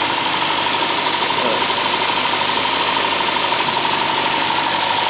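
Austin 1300's BMC A-series four-cylinder engine idling steadily, warmed up, with a steady high whine running through it. Its new dynamo is charging at about 13.7 volts, a good charging voltage.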